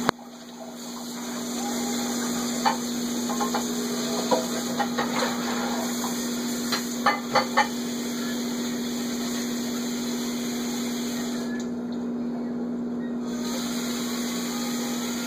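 Water running from a kitchen faucet into the sink, building up over the first couple of seconds, with dishes and utensils clinking against each other several times in the first half. A steady low hum runs underneath.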